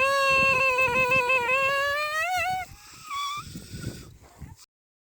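An animal's long, wavering call lasting about two and a half seconds, rising in pitch at its end, then a shorter, higher call. The sound cuts off abruptly a little before the end.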